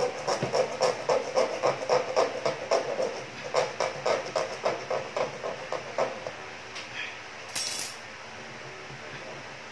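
Handling noise from fitting the plastic tubing and fittings of an aquarium overhead filter: a quick run of small clicks and knocks, about three or four a second, for about six seconds. A brief scratchy rustle follows near the end.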